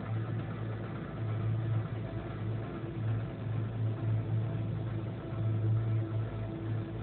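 Steady engine hum and road noise heard inside the cabin of a car driving along a highway, a low drone with a slight flutter and no distinct events.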